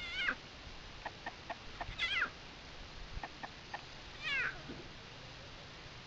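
Young lion cub mewing: three short, high calls about two seconds apart, each falling in pitch.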